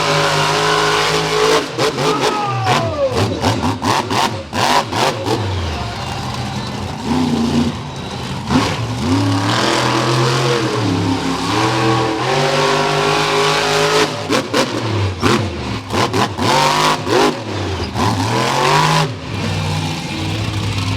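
Monster truck engine revving hard again and again, its pitch rising and falling in repeated surges, with sharp bangs scattered through.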